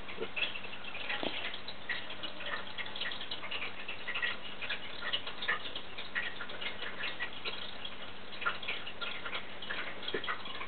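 Fine-tipped pen scratching and tapping on paper in many quick, irregular short strokes, sketching fluffy fur.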